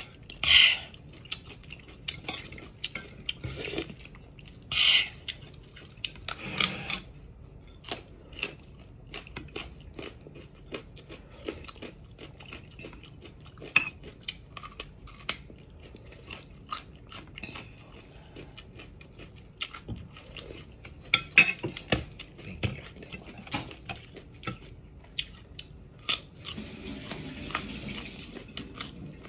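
Close-up eating sounds: crunching and chewing of raw vegetables such as carrot, with many short clicks of a metal spoon against a plate.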